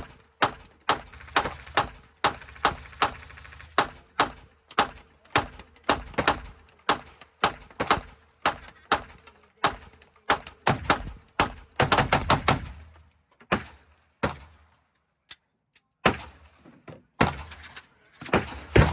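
Gunfire: a long string of sharp shots, about two or three a second, with a quick flurry around twelve seconds in and a short lull a little later before the shooting resumes.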